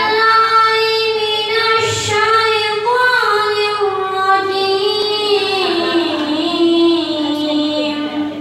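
A boy reciting the Qur'an in tartil style, chanting one long melodic phrase in a clear child's voice that slowly falls in pitch and fades near the end.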